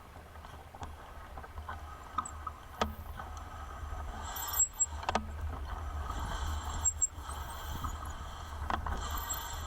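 Wind buffeting the microphone with a low rumble while riding a bicycle, along with tyre and road noise. A few short knocks and rattles come from the bike over bumps.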